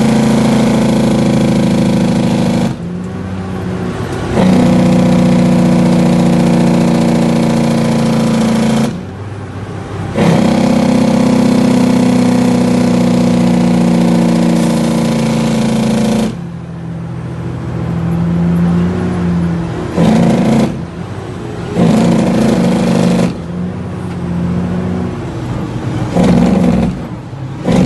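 Heavy truck's diesel engine heard from inside the cab, pulling loudly under load. It drops away twice for about a second and a half between gears. In the second half it runs quieter, with short surges of throttle every couple of seconds.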